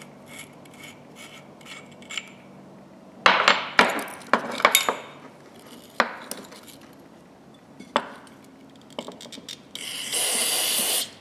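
Metal parts of locking pliers clinking and knocking as they are handled and cleaned on a workbench, with a cluster of sharp clicks a few seconds in and single knocks later. Near the end a steady hiss lasts about a second and a half.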